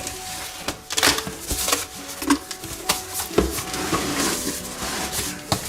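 Cardboard box and packaging being handled and pulled apart: irregular rustling, scraping and knocks of parts in their packing.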